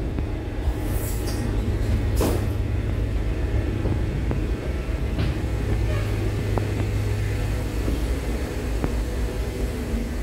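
Steady low engine hum from a large vehicle, with a few short hisses in the first couple of seconds.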